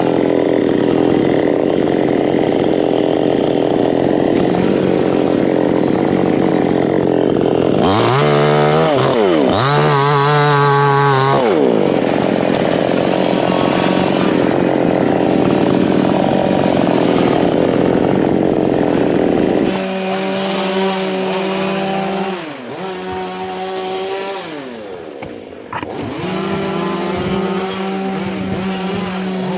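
Two-stroke chainsaw cutting into a large teak tree under load, its engine note dipping and rising twice about eight to eleven seconds in. From about two-thirds of the way through it runs a little more lightly at a steady pitch, with two brief drops.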